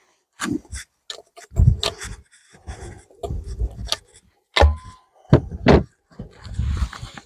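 A series of sharp clicks and knocks, about a dozen spread over several seconds, from a break-action 12-gauge double-barrel shotgun being handled and readied for a shot.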